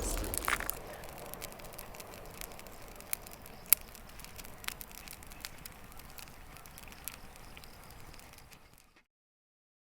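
Wood campfire crackling, with scattered sharp pops over a low hiss, fading out about nine seconds in.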